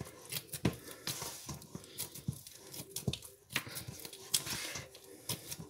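Hands kneading a stiff flour dough in a stainless steel mixing bowl: irregular soft squishes and rustles with occasional sharp knocks.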